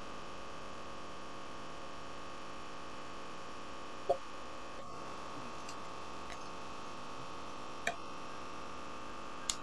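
Steady electrical hum with three short clicks: one about four seconds in, one near eight seconds and one near the end. No buzzing from the bee is heard.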